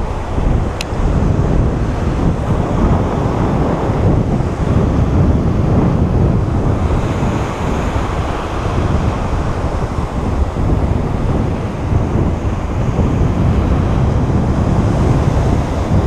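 Surf breaking and washing, with wind buffeting the microphone as a steady low rumble, and a single brief click about a second in.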